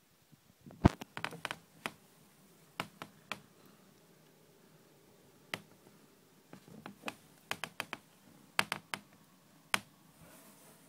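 Irregular sharp clicks and taps in scattered clusters, the loudest about a second in, with quieter single taps spread through the rest.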